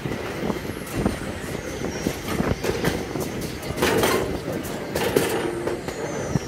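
Open-sided miniature park train riding along its track: a steady rumble and rattle of the cars with scattered knocks from the wheels and couplings.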